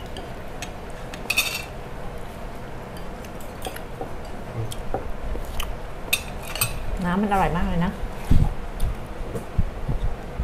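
Cutlery and dishes clinking during a meal: scattered small clicks and knocks, with one ringing clink about a second and a half in. A short wavering vocal sound comes around seven seconds in, followed by a dull thump, the loudest sound.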